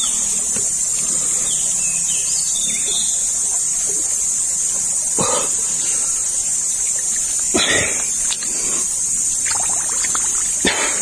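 River water sloshing and splashing around a person wading neck-deep, with three louder splashes about five seconds in, near eight seconds and at the end, over a steady high-pitched insect buzz.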